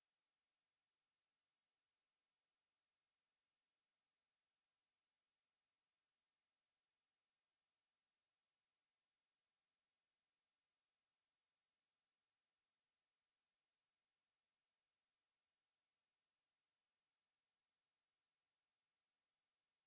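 Pure 5918 Hz sine-wave test tone: a single high-pitched steady whistle held at constant level.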